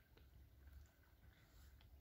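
Near silence: a faint low rumble with a few faint ticks.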